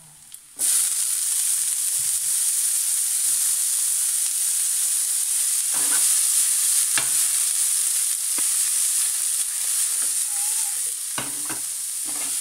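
Blanched, drained broccoli, carrots and beans hitting hot oil and garlic in a non-stick frying pan: a loud sizzle starts suddenly about half a second in and stays steady as the vegetables are stir-fried and tossed, with a few knocks along the way.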